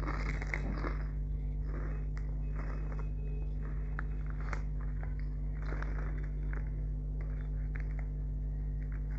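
Crunchy puffed protein snacks being bitten and chewed, with scattered short crisp crunches. There is a denser burst of crackling in the first second as a hand goes into the plastic snack bag.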